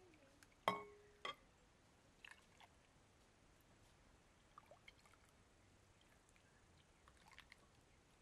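A sharp clink with a short ringing tone about a second in, a second softer clink just after, then faint scattered taps over near silence.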